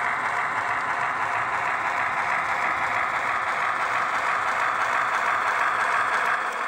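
Long model freight train rolling along the layout track, its wheels on the rails giving a steady rushing noise that grows a little stronger near the end.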